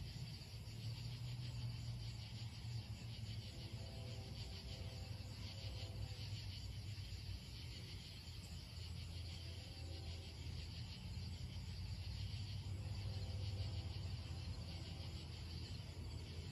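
A steady night chorus of crickets chirping, over a low, steady rumble from a distant approaching diesel freight train.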